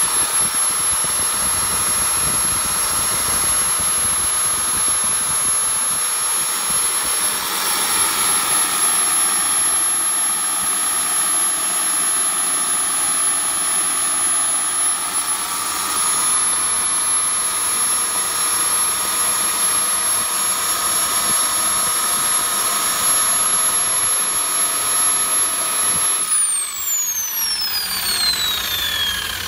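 Kingtech K45TP turbine-turboprop engine running steadily on a model aircraft, a high turbine whine over propeller and exhaust noise. About 26 seconds in it starts to wind down, its whine falling steadily in pitch.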